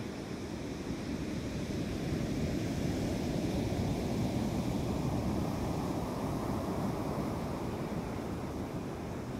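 Black Sea storm surf breaking and washing up a sandy beach in a steady rush. It swells about two seconds in as a wave runs up the sand, then eases off near the end.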